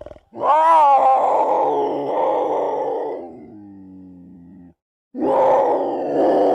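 Mountain lion (cougar) vocalizing: two long, loud, rasping calls. The first starts on a clear pitch and fades into a lower, quieter drawn-out tone before a brief gap and the second call.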